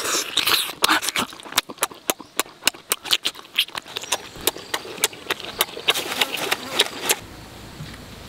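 Chewing and lip-smacking of a person eating grilled squid, with sharp irregular smacks several times a second; it stops about seven seconds in.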